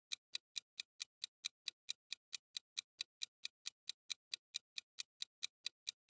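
Quiz countdown-timer sound effect: quiet, even clock-like ticking, about four to five ticks a second.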